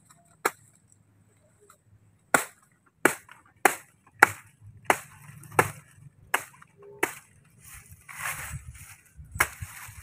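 A blade chopping into the soft trunk of a banana plant near its base: about ten sharp strokes, one early and then a steady run of roughly three every two seconds.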